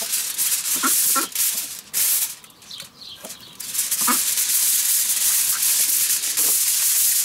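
Aluminium foil crinkling and rustling as a sheet is pulled over and folded down, with a brief lull about two and a half seconds in.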